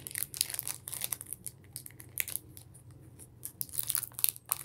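Pokemon booster pack's foil wrapper crinkling and tearing in irregular crackly bursts as the pack is opened, loudest near the start and again about four seconds in.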